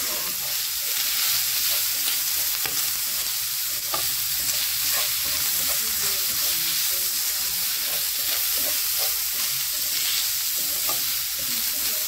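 Chopped bacon sizzling in a frying pan, a steady even hiss with a few faint light clicks.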